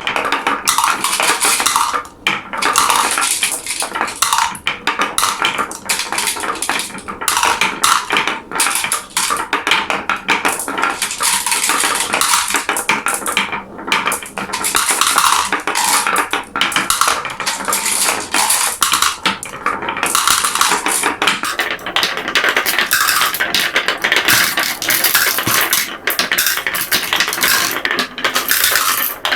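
Many glass marbles rolling and clattering down a marble run, a continuous rattle of small clicks and clinks that briefly thins out now and then.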